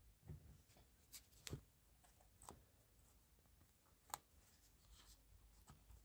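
Near silence, broken by a few faint scattered clicks and taps of hands handling a boot sole; the clearest click comes about four seconds in.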